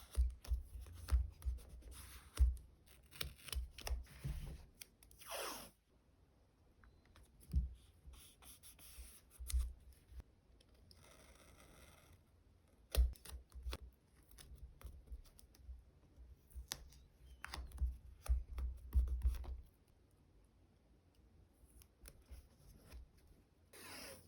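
Close-miked diary-decorating handling sounds: sticker sheets and plastic packaging rustled, stickers peeled off, with irregular small clicks, taps and scrapes and a short peeling swish about five seconds in.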